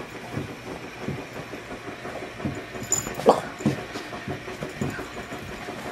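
A dog snuffling and rustling close to the microphone in irregular soft low strokes, with one short, louder, higher sound about halfway through.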